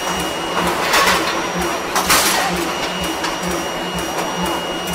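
Axial closed die rolling forging machine running with a steady mechanical hum that pulses about three times a second, with two short hissing bursts about one and two seconds in as the hot billet is worked.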